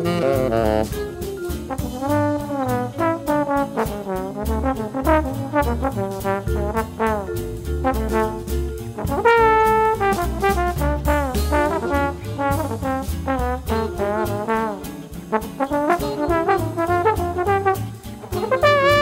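Big-band swing jazz: a trombone solo line over the band's rhythm section, with a stepping bass line and drums keeping steady time.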